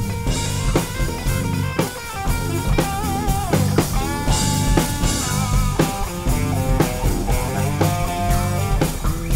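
A rock band jamming: an electric guitar lead with sliding, bent notes over bass guitar and a steady drum-kit beat.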